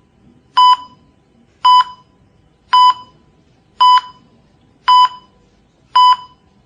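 Hospital heart monitor beeping: six short, high, single-pitched beeps, evenly spaced about once a second, over faint low background noise.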